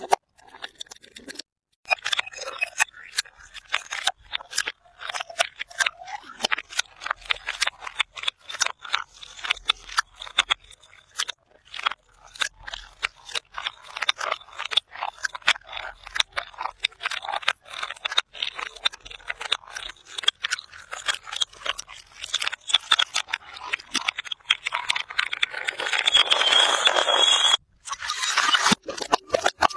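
Glass bottles and jars tumbling down concrete steps with metal-edged treads: a long, irregular run of sharp clinks and knocks, with glass breaking and crunching. Near the end there is a denser stretch of shattering.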